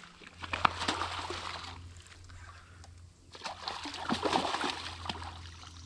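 Hooked redfish thrashing at the surface of shallow water, splashing in two spells with a short lull between.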